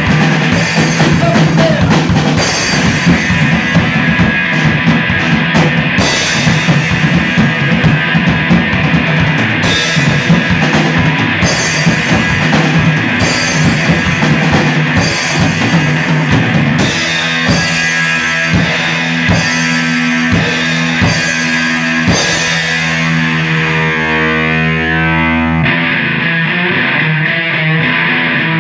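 Live rock band playing loud, with a drum kit pounding and distorted electric guitar. The drumming thins to spaced cymbal hits after about two-thirds, then gives way to guitar ringing on its own near the end.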